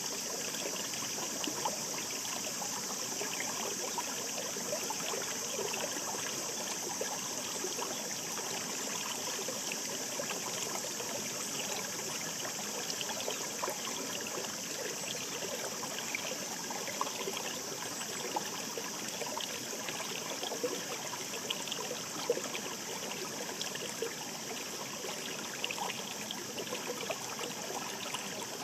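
Shallow mountain stream babbling over rocks: a steady rush of flowing water dotted with many small splashes and trickles.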